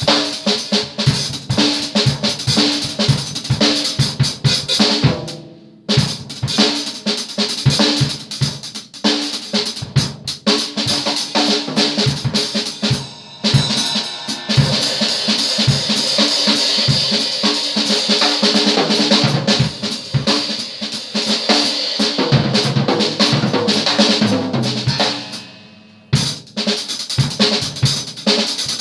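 Acoustic drum kit played hard and fast, with busy tom, snare and bass drum hits and cymbals, breaking off briefly about six, thirteen and twenty-six seconds in. From about fourteen to twenty-five seconds a sustained bright metallic wash rides over the drumming.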